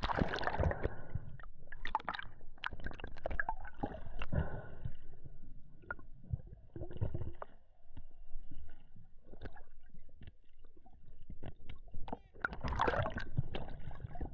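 Water gurgling and sloshing around a spearfisherman's camera in the water, with irregular bubbling and splashing. The louder surges come at the start and again near the end.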